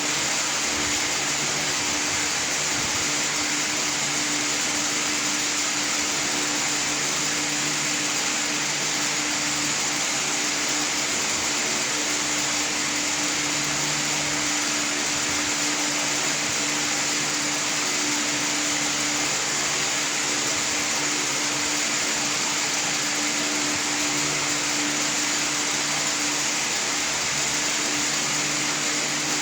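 Steady whirring of a running motor, with a constant hum under a strong hiss, unchanging throughout.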